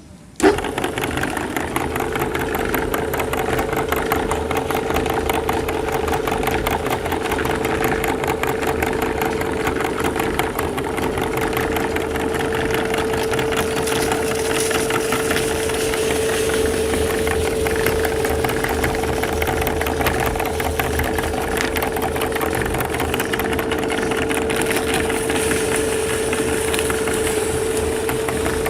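Electric meat grinder motor switched on about half a second in and running steadily with a constant hum, grinding chocolate candy biscuits.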